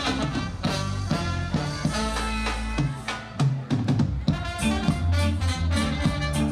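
Live reggae band playing: a horn line of trombone and saxophone over a drum kit and bass guitar, with a steady beat.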